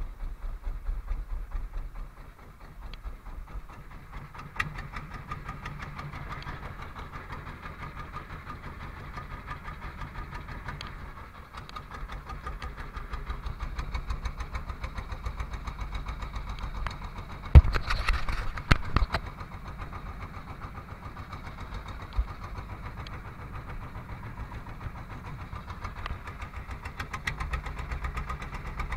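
Small fishing boat's engine running steadily with a fast, even chug, with wind and water in the background. About two-thirds of the way through comes a short cluster of loud knocks.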